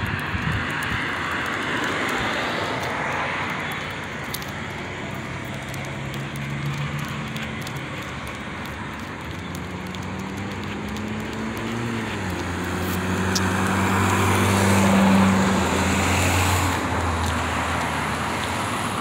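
Road traffic: a motor vehicle drives past, its low engine note growing louder to a peak a few seconds before the end, then easing off, over a steady rush of street noise.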